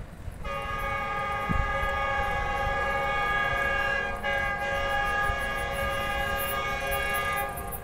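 Approaching Pakistan Express locomotive's horn sounding one long multi-note blast, starting about half a second in, dipping briefly about four seconds in and ending near the end. The horn is warning people to clear the track ahead of the fast train.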